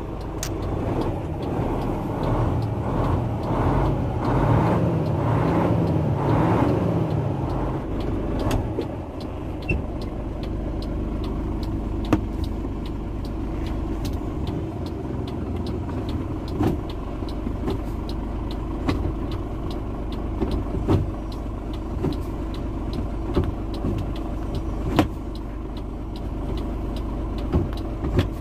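Isuzu Gigamax's 6WF1 diesel engine idling, heard from inside the cab as a steady low hum that wavers up and down for the first several seconds. Sharp clicks of dashboard switches being pressed sound here and there over it.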